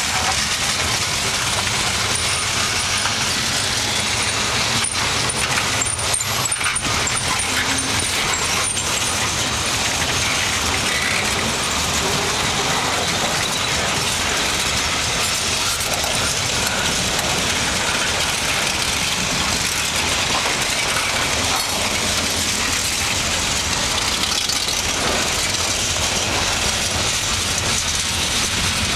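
Freight cars of a long mixed freight train rolling steadily past: a constant rumble and rush of steel wheels on the rails, with a few sharp clicks about five to nine seconds in.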